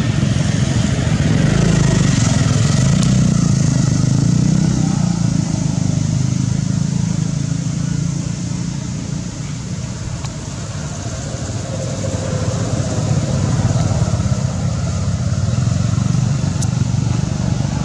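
Low steady engine rumble of motor traffic, easing a little about halfway through and building again.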